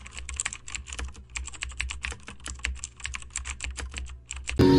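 Computer keyboard typing sound effect: rapid key clicks, about eight a second with a few short pauses, matching text typed out on screen. Near the end the clicks stop and music comes in.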